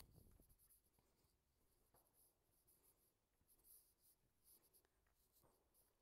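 Near silence, with a few faint soft ticks.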